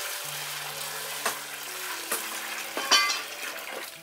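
Water pouring and splashing into a large aluminium basin as hands wash skinned frogs, with a sharp knock about three seconds in.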